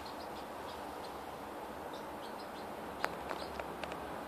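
A lineolated parakeet pecking at a moist food mix in a ceramic bowl: a quick run of five or six small sharp clicks from its beak about three seconds in, with a few fainter ticks earlier, over a steady low hiss.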